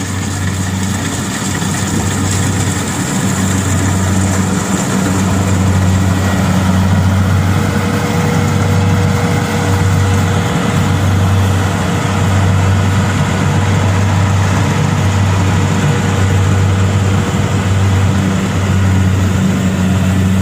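Yanmar rice combine harvester running steadily, its engine giving a loud, continuous low hum under a wide spread of machine noise.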